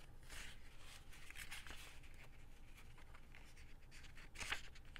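Faint rustling and sliding of paper and card being handled, with a sharper rustle about four and a half seconds in.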